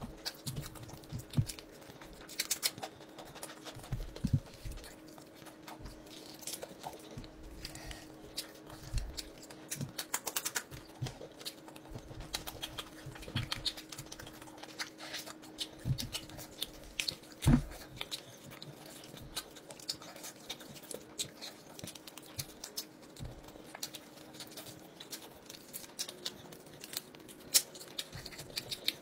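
Close-up eating sounds: chewing and mouth smacking, with crackly tearing as roast chicken is pulled apart by hand, and one louder knock a little past halfway. A faint steady hum runs underneath.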